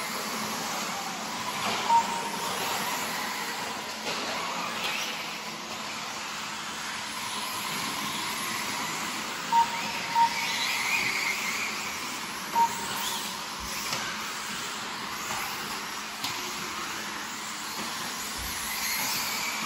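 4WD RC buggies racing, a shifting whirr of motors and tyres, with four short, sharp beeps (one near the start, two close together about halfway, one a little later), typical of a lap-timing system registering cars crossing the line.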